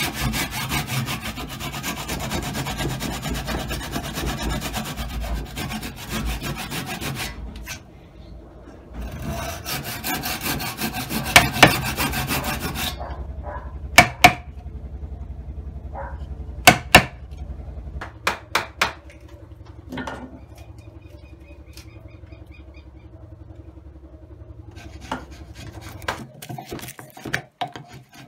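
Hand tools cutting into a pine post: two stretches of rapid scraping, sawing-like strokes with a short pause between them. These are followed by about half a dozen sharp knocks of chisel work between about 11 and 19 seconds in, then quieter paring of the notch.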